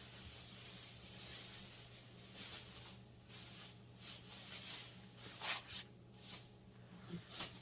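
Plastic sheeting rustling and crinkling in irregular bursts as it is laid out and smoothed by hand, with a few sharper crackles near the end, over a low steady hum.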